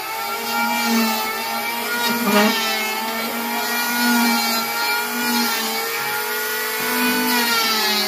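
Electric hand planer running while it shaves the wooden seat boards of a sofa, a steady whine of several tones that waver slightly in pitch as it cuts.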